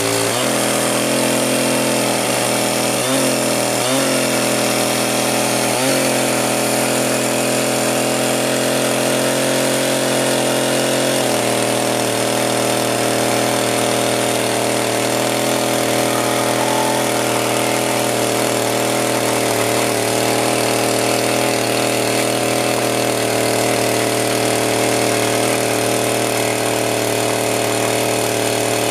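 Power sander running steadily against wood. Its pitch dips briefly a few times in the first six seconds as it is pressed into the work.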